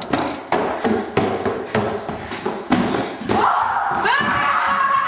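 Music with a fast, steady beat, about three strokes a second. About three seconds in, a pitched tone rises and then holds over the beat.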